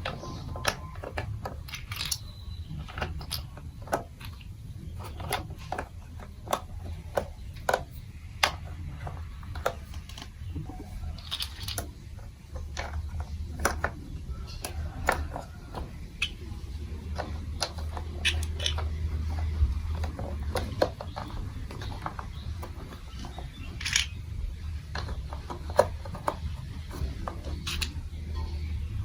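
Irregular light plastic clicks and clacks from a plastic building-block marble run, over a steady low hum.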